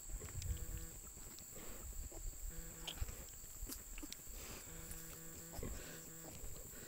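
American Guinea Hog sow giving a series of short, low, pitched grunts, roughly once a second, while farrowing, with rustling and bumping in the bedding.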